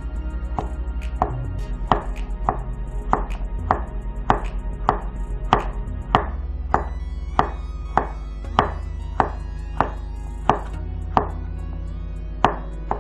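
Chef's knife chopping carrots on a plastic cutting board: a steady run of sharp blade strikes, about one and a half a second, as the carrot is rough-cut into chunks.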